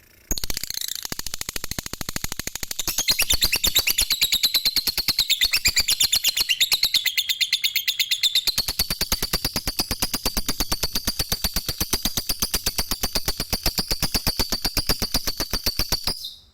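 Lovebird giving a long unbroken 'ngekek' chatter: a rapid rattling trill of evenly spaced notes, wavering in pitch, that runs for about sixteen seconds and stops abruptly.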